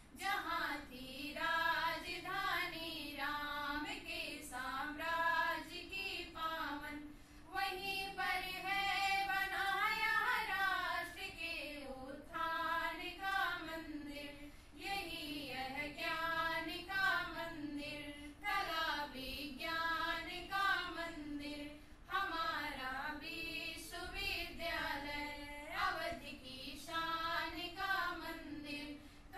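A small group of young women singing together in unison into a microphone, unaccompanied, with short breaks between phrases.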